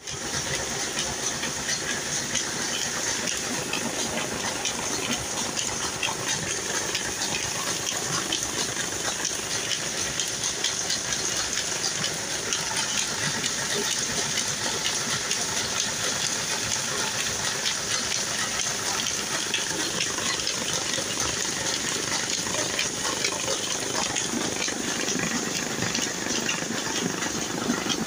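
Mustard oil expeller (screw press) running steadily while pressing mustard seed: a continuous, noisy mechanical hiss with dense fine ticking throughout.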